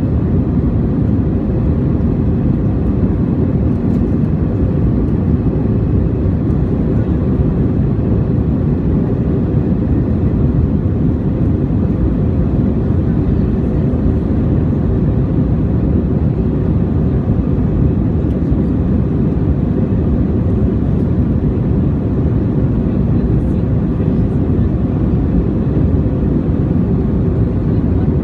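Steady cabin drone of an Airbus A321 in flight, the jet engines and rushing airflow heard from inside the passenger cabin as a deep, even rumble.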